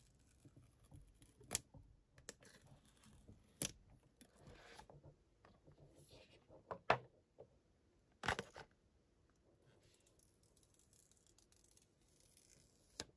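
Quiet unboxing handling of an iPhone 13 Pro box. The paper tear-strip seal rips off, the lid slides up off the phone, and near the end the protective film peels off the screen, with several sharp taps and clicks of fingers and cardboard in between.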